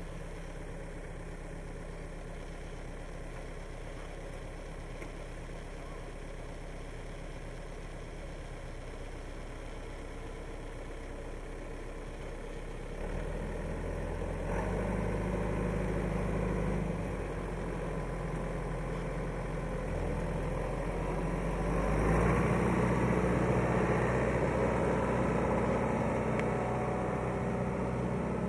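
1996 John Deere 5500 tractor's three-cylinder diesel engine idling steadily, then throttled up to a higher speed about 13 seconds in. It drops back a little and rises again at about 22 seconds as the tractor moves off.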